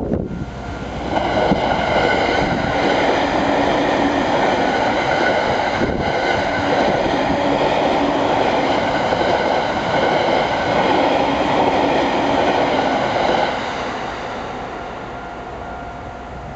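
E231 series electric train passing over a level crossing, loud for about twelve seconds and then fading away about thirteen seconds in. The crossing's warning bells ring steadily beneath it.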